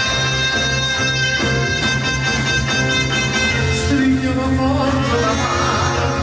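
The show's theme song: music with a steady beat and men singing it into handheld microphones.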